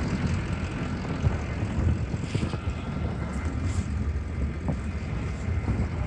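Steady low engine drone of vehicles in street traffic.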